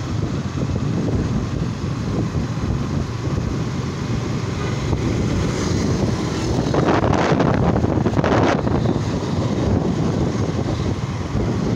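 Motorcycle engine running steadily while riding in traffic, with wind rushing over the microphone. A louder rushing swell comes about seven seconds in and fades a second and a half later.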